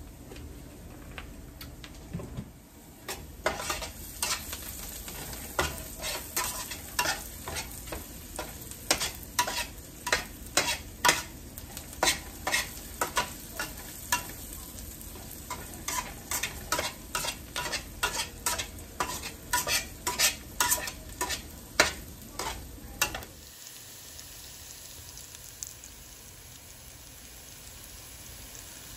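Onions, carrots and herbs frying in olive oil in a pan, sizzling steadily, while a utensil stirs them, clicking and scraping against the pan about two or three times a second. The stirring stops a few seconds before the end, leaving only the sizzle.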